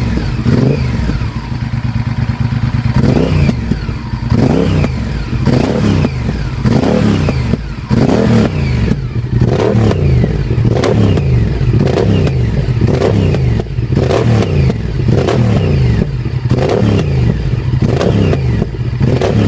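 Honda VTR1000F Firestorm's V-twin engine through a Two Brothers aftermarket exhaust, revved again and again in short throttle blips, each rise in revs falling quickly back toward idle.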